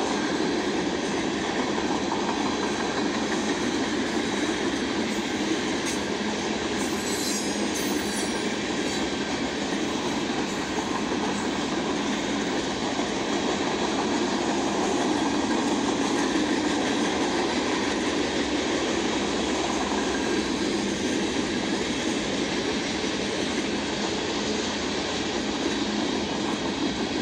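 Freight cars of a mixed freight train rolling steadily past, wheels running on the rails in a continuous rumble. A brief high-pitched squeal comes about seven seconds in.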